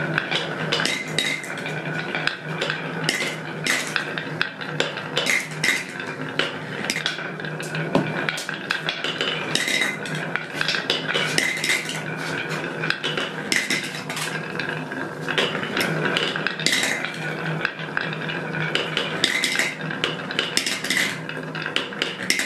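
Glass marbles rolling down a pine HABA wave-groove slope and a wooden chute: a steady rolling rumble with dense rattling clicks as they knock against the wooden groove walls and clink against each other in a plastic catch bowl.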